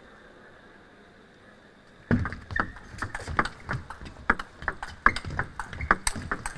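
Table tennis rally: after a quiet moment the ball starts clicking sharply off the bats and the table about two seconds in, several hits a second, over the murmur of the arena.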